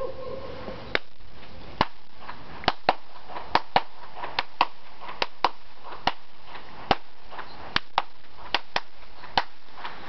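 Hand claps echoing off a sandstone cliff amphitheater: about eighteen sharp claps at an irregular pace, several of them in quick pairs.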